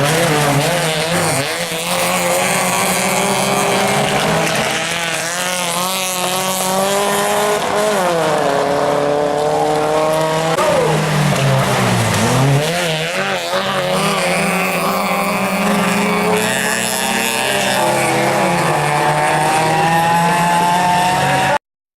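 Toyota Corolla off-road racing car's engine at full throttle. Its pitch climbs steadily, drops sharply on lifts and gear changes, then climbs again. The sound cuts off abruptly near the end.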